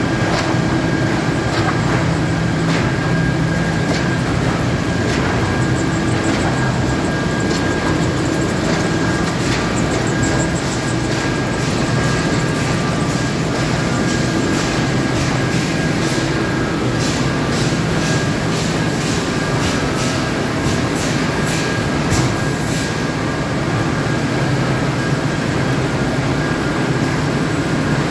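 Sheet-printing line machinery with a UV dryer and conveyors running: a steady mechanical hum with a thin high whine, overlaid by a rattling clatter of clicks that crowds together about two-thirds of the way through.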